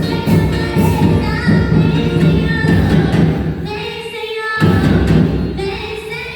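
Percussion band of drums playing a hymn with singing over it, the drum strokes keeping a steady beat. The drums drop out for about a second near the middle, then come back in.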